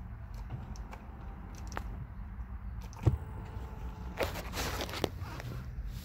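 Scattered clicks and a short rustle of handling inside a car cabin, with the engine off, over a low steady rumble; one sharper click comes about three seconds in.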